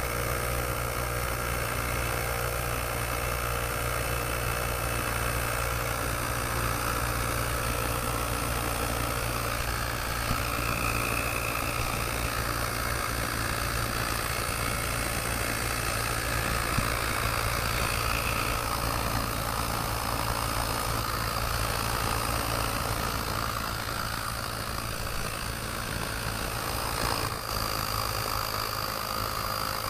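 Weiti portable cordless tire inflator's small compressor running steadily, pumping air into a deflated motorcycle rear tyre set to stop at 33 PSI, with the pressure climbing past 15 PSI.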